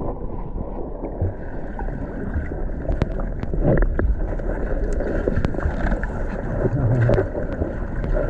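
Steady rush of a waterfall pouring into its plunge pool, with wind buffeting the microphone and a few sharp clicks over it.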